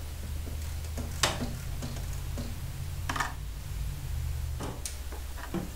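3/8-inch socket ratchet clicking in short runs as it loosens the gas tank's mounting bolts, with a few sharper clicks, the loudest about a second in and about three seconds in. A steady low hum runs underneath.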